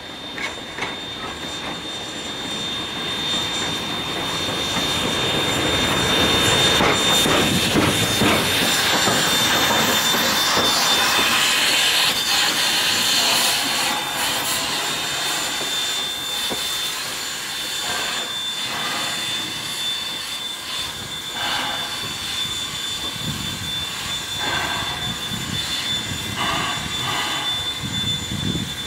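South Australian Railways steam locomotive RX207 hissing steam as it moves slowly and stands. The steady hiss swells to its loudest between about six and twelve seconds in, then eases.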